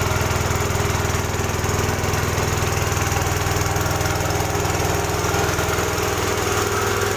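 Air compressor running steadily with a rapid, even pulsing hum, pumping air for inflating.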